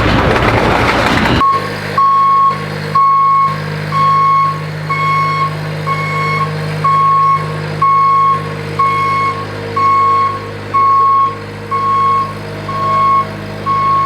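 Bobcat S70 skid-steer loader backing up: its diesel engine running steadily under the high beeping of its backup alarm, about one beep every two-thirds of a second. A loud rushing noise fills the first second or so before the beeping starts.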